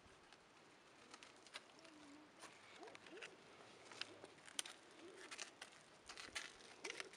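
Quiet scene with soft clicks and crunches, growing busier about halfway through, as a beisa oryx picks at the dry ground close by. Faint short, low cooing calls come now and then in the background.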